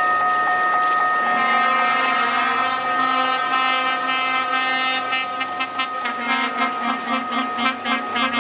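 EMEPA Alerce diesel railcar passing close and sounding its multi-note horn in one long steady blast. The railcar's engine note rises under it about a second in, and in the second half the wheels click rhythmically over the rail joints.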